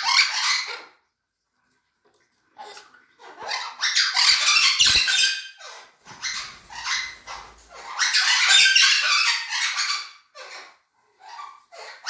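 Cuban Amazon parrots squawking: harsh, loud screeching calls in long bouts of a few seconds each, broken by short pauses, then a few short squawks near the end.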